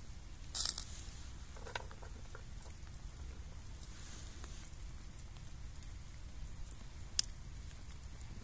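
Small fire of damp twigs burning in a homemade tin-can wood gas stove: faint sizzling with a few sharp crackles, a short burst about half a second in and a single sharp crack near the end. Low steady rumble of wind on the microphone underneath.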